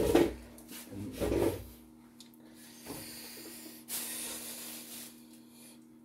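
Hands rubbing and scraping on a wooden workbench and the laptop: a loud handling noise at the start, then a few short rubs, the longest about four seconds in, over a faint steady hum.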